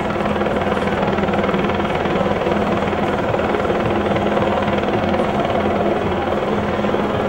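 Helicopter flying overhead: its rotor and engine make a steady, unbroken drone.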